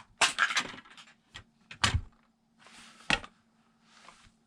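Small toys being handled: a string of light knocks and clicks, with a couple of brief rustles.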